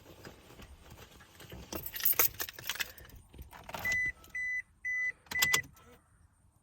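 Keys jangling and clicking, then the 2007 Toyota Tacoma's warning chime sounds four short, high beeps about half a second apart.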